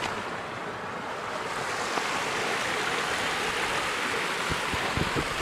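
Water of a very small waterfall cascade running, a steady rushing hiss, with a few soft low knocks near the end.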